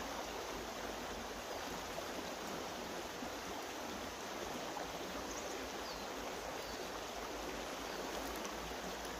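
Steady rush of flowing water from a stream, with a couple of faint high chirps about midway and near the end.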